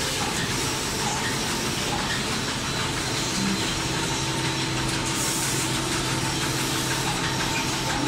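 Napkin and tissue paper converting and packing machinery running: a steady mechanical hum with hiss, and a low steady tone that joins about three and a half seconds in.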